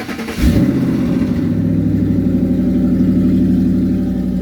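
Ford 4.6 three-valve V8 cranking briefly and firing about half a second in, flaring up and then settling into a steady idle. It is a dry start after sitting, and the engine fires right up.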